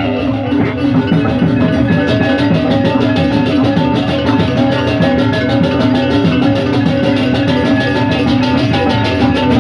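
Balinese gamelan ensemble playing: metal percussion over a steady low gong-like tone, with a fast, even beat.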